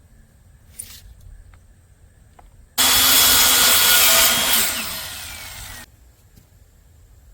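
Electric power saw cutting wood: it starts suddenly about three seconds in and runs steadily for a second and a half. Its motor then winds down in pitch before the sound cuts off.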